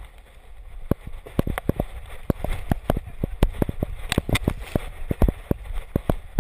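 Irregular sharp knocks and rattles, about four a second, from a GoPro camera strapped to a running dog's back, jolting with each stride, over a low rumble of wind on the microphone.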